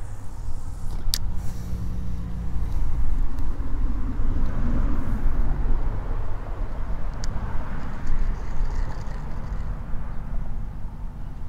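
Wind buffeting the action camera's microphone: a steady low rumble with no speech, and a sharp click about a second in.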